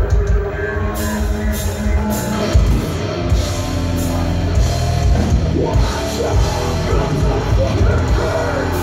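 Live heavy metal band playing at full volume, with distorted guitars, bass and drums. The cymbals crash in about a second in and keep crashing repeatedly, heard through a smartphone's microphone in the crowd.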